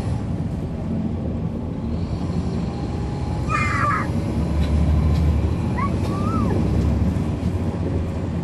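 Caterpillar C13 ACERT diesel of a NABI 40-SFW transit bus running, heard from the rear seat, its low rumble growing louder from about halfway through. A brief high squeal comes about three and a half seconds in, and a couple of short squeaks around six seconds.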